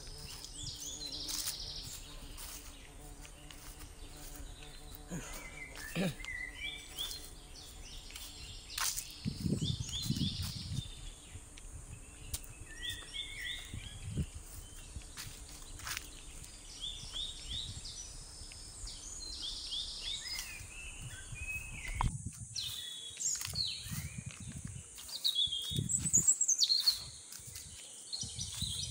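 Small birds chirping and calling in short repeated phrases, over a steady high insect buzz, with low thuds and rustles of footsteps through the undergrowth.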